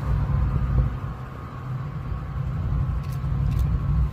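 Norfolk Southern diesel locomotives moving away with a steady low engine rumble.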